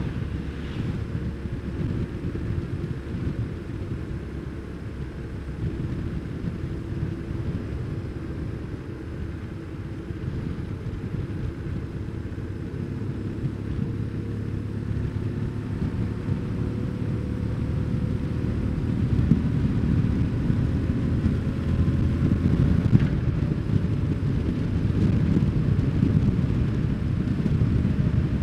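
BMW R1150GS boxer twin running on the road, with wind buffeting the microphone; the sound grows gradually louder through the second half.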